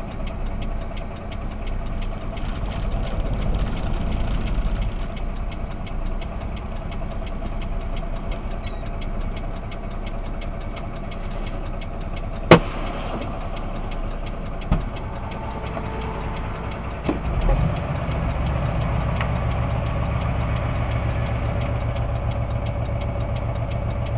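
Vehicle engine idling steadily, heard from inside the cab. There is a sharp click about halfway through, a smaller click a couple of seconds later, and a clunk a few seconds after that, after which the low engine hum is louder.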